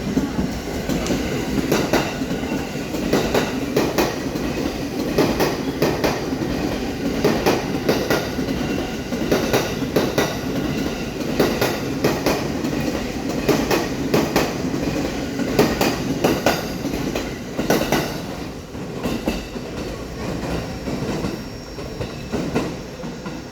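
JR East E231 series electric multiple unit passing through a station, its wheels clattering over the rail joints in recurring groups of sharp clicks. The clatter thins out and fades over the last few seconds as the train clears.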